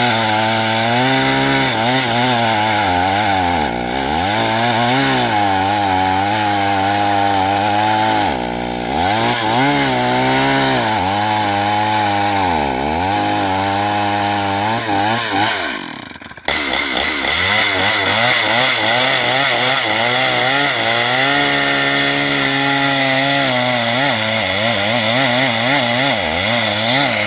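Stihl MS 381 two-stroke chainsaw running at high revs and cutting into a meranti trunk, its pitch dipping repeatedly as the chain bogs under load and climbing again. The sound breaks off suddenly for a moment about sixteen seconds in, then runs on.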